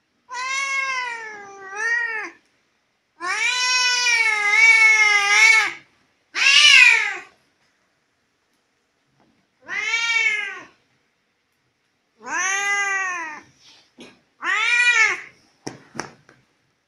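Tabby house cat meowing: about six long, drawn-out meows a second or two apart, each rising and falling in pitch, the longest over two seconds. A few short clicks follow near the end.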